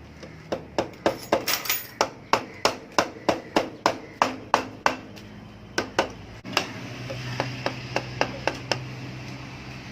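Hammer tapping repeatedly on the cylinder head and block of a Yamaha RXZ two-stroke engine to break them loose from the gasket, about three sharp blows a second for some five seconds, then a few lighter taps. A steady low hum comes in about halfway through.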